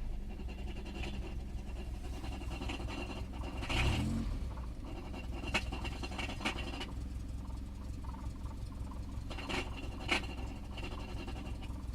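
1989 Fiat Tipo engine idling with a light metallic rattle that comes and goes in three stretches, with a few sharp clicks, and a brief thump about four seconds in. The rattle appears when the clutch pedal is pressed at idle below about 950 rpm; the cause is unknown.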